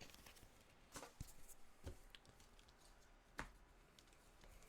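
Near silence, with a few faint taps and rustles from trading cards and a booster pack being handled.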